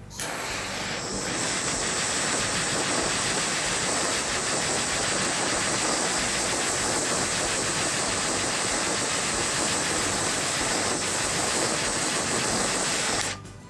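Blowtorch flame burning with a steady, even hiss as it heats an old thermowax choke actuator until the wax swells and pushes its plunger out. The hiss cuts off sharply near the end.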